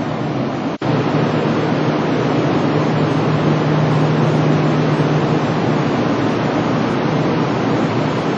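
Steady rushing station-platform noise with a low steady hum, with a Kintetsu train standing at the platform. The sound drops out for an instant about a second in, at an edit cut, then carries on unchanged.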